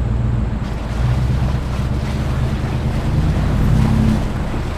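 Wind buffeting a hood-mounted GoPro's microphone as a Ford F-150 pickup drives along a muddy dirt track, with the truck's engine running underneath as a steady low hum.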